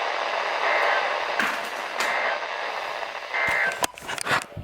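Weather radio reception with steady static hiss, broken by three short warbling data bursts about a second and a quarter apart: the EAS end-of-message code that closes a NOAA Weather Radio alert. Crackling clicks come near the end as the signal breaks up.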